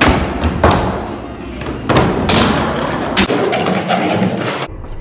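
Skateboards rolling with repeated hard thuds and slaps of boards hitting and landing, about five impacts a second or so apart, in a large echoing room.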